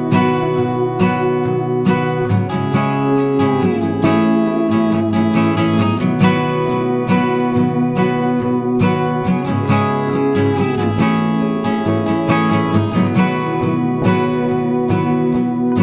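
Instrumental music played on plucked strings, with steady plucked and strummed notes, several of which bend downward in pitch.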